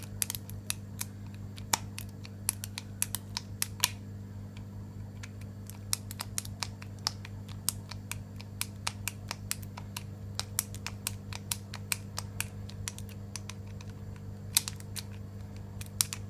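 Irregular light metallic clicks and ticks of a 7-pin tubular lock pick being worked in a tubular disc lock, its feeler pins clicking as the tool is turned and rocked, over a steady low hum.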